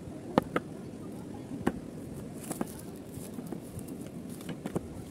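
Tableware set down and handled on a hard tabletop: a scattering of sharp knocks and clinks from glass, plastic tray and cutlery, the loudest about half a second in.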